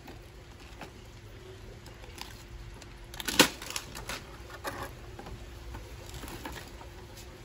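Light handling noises of things in an Easter basket being touched and moved: scattered soft taps and rustles over a faint steady hum. One sharper, louder knock comes about three and a half seconds in.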